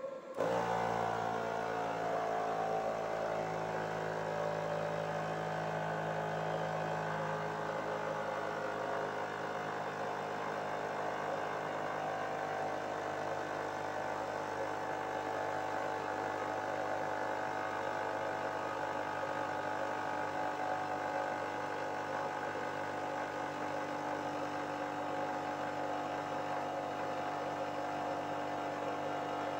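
A Stirling-engine generator's cooling system and top-up compressor switch on abruptly just after the start, then run as a steady whirring hum of several tones, its pitch settling over the first few seconds. The switch-on is the sign that the engine has reached its set working temperature.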